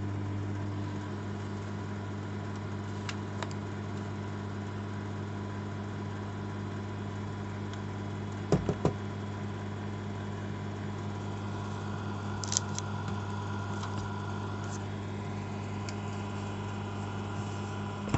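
Old microwave oven running with a steady electrical hum, with a couple of brief knocks about halfway through.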